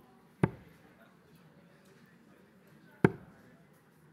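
Two steel-tip darts striking a Winmau Blade 6 bristle dartboard: two sharp single impacts about two and a half seconds apart, one about half a second in and one about three seconds in.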